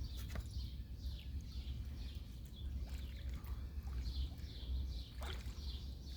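Birds chirping, many short falling chirps over and over, over a low steady rumble, with a couple of faint clicks.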